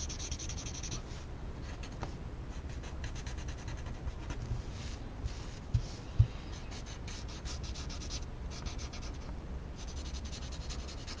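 Paper blending stump rubbing graphite across a paper tile in quick short scratchy strokes, with brief pauses, to soften and spread the pencil shading. Two soft low thumps come about six seconds in.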